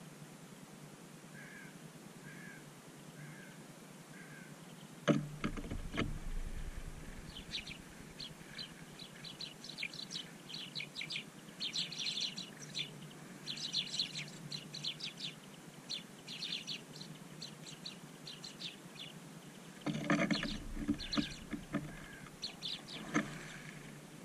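Small songbirds feeding on seed on snow, giving many short, high chirps. Two louder close rustling bursts, about five seconds in and again about twenty seconds in, fit birds fluttering in to land.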